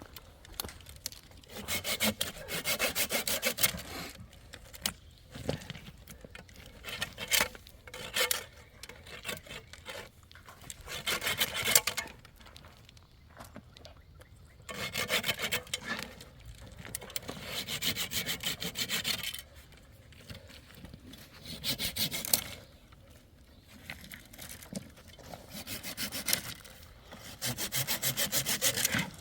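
A saw cutting through wood in several bouts of a few seconds each, with short pauses between them.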